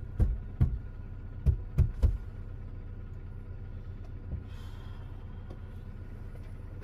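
A steady low hum inside a car with the ignition on, under a quick run of about six sharp, heavy knocks in the first two seconds.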